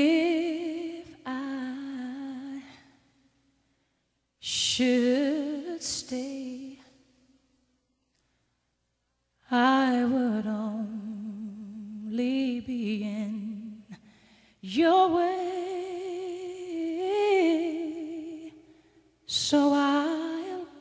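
Unaccompanied wordless singing: a single voice humming long, held notes with vibrato, in phrases of a few seconds separated by short silences.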